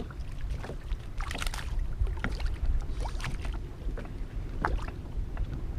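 Wind buffeting the microphone in a steady low rumble, with a few short splashes of water lapping against the boat about a second and a half, three seconds and four and a half seconds in.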